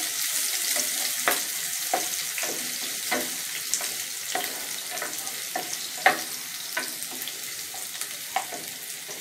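Chopped onions and whole spices (cardamom, cinnamon, cloves) sizzling in hot oil in a frying pan, the sizzle slowly easing. A spatula stirs them, clicking and scraping against the pan in irregular knocks, the loudest about six seconds in.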